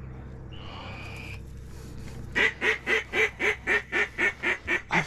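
Mallard-type quacking: a short call about a second in, then from about two seconds in a loud, rapid, evenly spaced run of quacks, about four or five a second.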